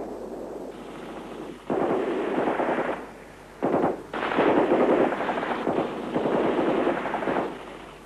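Automatic gunfire in rapid bursts: one begins about two seconds in, a short one follows near four seconds, then a longer burst of about three seconds.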